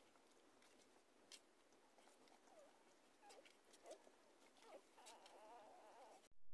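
Newborn puppies squeaking faintly while nursing: several short high squeaks, then a longer wavering whine about five seconds in, over soft suckling clicks. The sound cuts out abruptly near the end.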